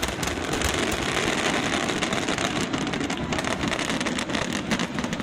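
Fireworks crackling: a dense, continuous spatter of many small pops that holds steady throughout.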